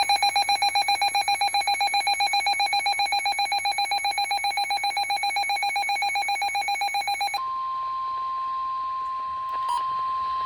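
A NOAA weather radio receiver going off for a special marine warning: a fast, evenly pulsing electronic beep for about seven seconds, then the station's steady warning alarm tone near 1 kHz, with a few short beeps over it near the end.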